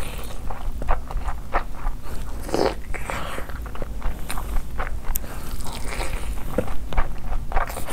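A person chewing big mouthfuls of fried rice and chicken, with irregular mouth smacks and crunchy bites several times a second.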